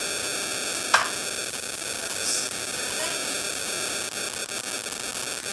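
Steady hiss of static-like noise, with one sharp click about a second in.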